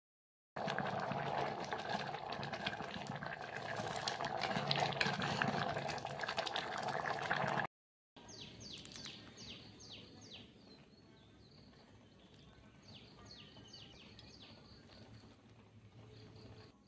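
Thick chana dal bubbling in an open aluminium pressure cooker, a loud, steady, crackling bubbling that cuts off abruptly about eight seconds in. After a brief silence comes a much quieter stretch with short, high chirps falling quickly in pitch, in two clusters.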